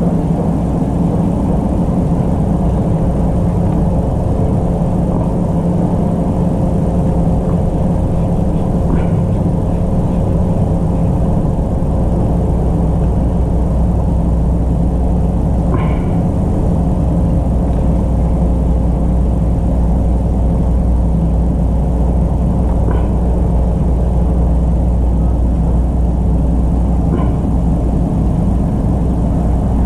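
A motor-driven pump unit running steadily, giving a loud, even low hum and rumble, with a few faint ticks now and then.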